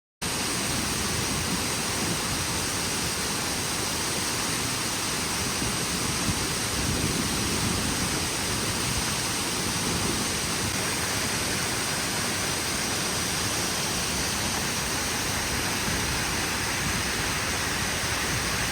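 Waterfall: a steady rush of falling water, cutting in abruptly just after the start.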